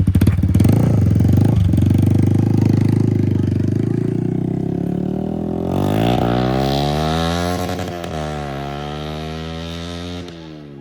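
Yamaha R15 V4's single-cylinder engine idling loud and steady through an aftermarket exhaust with its dB killer removed. About halfway through, background music fades in over the idle.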